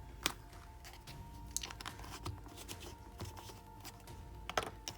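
Soft background music with scattered light clicks and crinkles from small plastic containers and packaging being handled.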